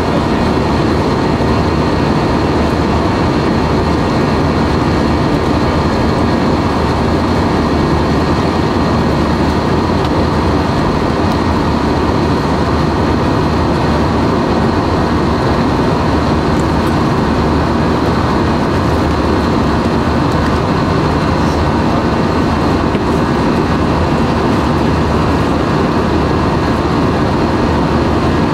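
Steady jet airliner cabin noise heard from a passenger seat: engine and airflow noise holding at a constant level, with a faint high whine.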